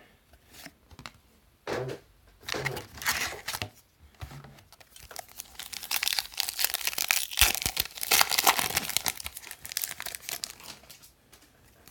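A trading-card pack wrapper being torn open and crinkled. It comes in short crackling bursts at first, then as a dense, continuous crinkle for several seconds.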